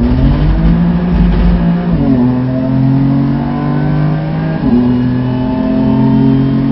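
BMW F80 M3's twin-turbo straight-six under hard acceleration, heard from inside the cabin. The engine note climbs through the revs, drops sharply with an upshift about two seconds in and again near five seconds, then climbs again each time.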